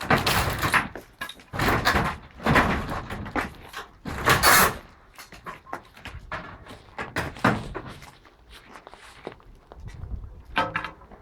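Wooden barn structure being pushed over by hand: a series of loud crashing, rattling bangs from the boards and framing, four big ones in the first five seconds and the loudest about four and a half seconds in, followed by smaller knocks.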